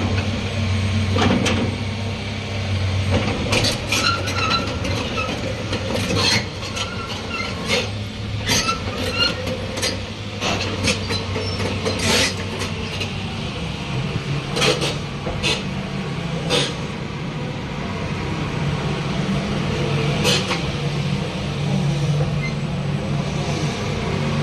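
Hitachi ZX240 excavator's diesel engine running steadily, with repeated sharp metal clanks and short squeaks from the working machine.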